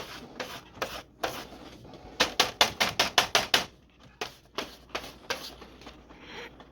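Sharp hard-plastic clicks and taps from handling printer ink cartridges and parts, with a quick run of about eight clicks near the middle.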